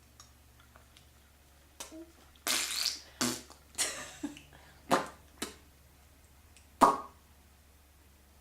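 A baby making a string of short mouth noises while eating: breathy puffs and smacking pops. The loudest is a sharp pop near the end, the kind of popping noise he makes after swallowing.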